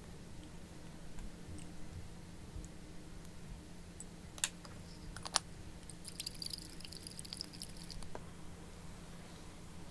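Small plastic model-kit parts dropped into a glass jar of liquid: two sharp clinks about a second apart near the middle, then about two seconds of fizzy crackling as the capped jar is shaken and the liquid foams.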